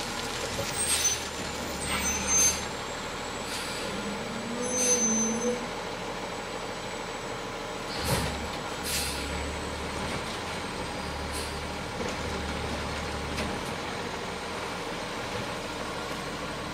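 Garbage truck's diesel engine running, its low rumble swelling in spells, with several short, sharp air-brake hisses and clunks as it works its way along the yard-waste carts.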